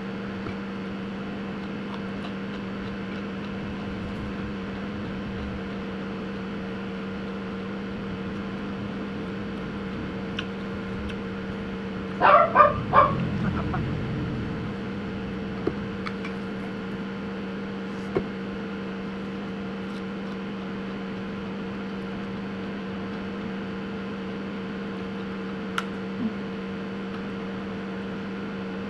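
A steady electrical hum throughout. About twelve seconds in, a dog barks three times in quick succession, and a few light clicks follow.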